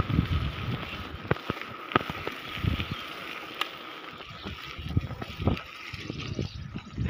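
Bicycle tyres rolling on a wet asphalt road with a steady hiss of water spray, wind buffeting the microphone in gusts, and scattered sharp clicks and knocks from the bike.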